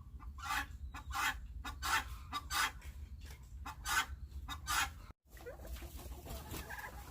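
Domestic chickens clucking: a run of short, loud clucks about every half second, then softer, mixed calls from the flock after a brief break near the end.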